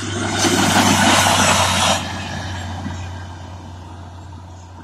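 WM-15S rail draisine's diesel engine running with a steady low hum as it passes and pulls away, fading gradually. A loud rushing noise from the passing vehicle rises over the first second and cuts off suddenly about two seconds in.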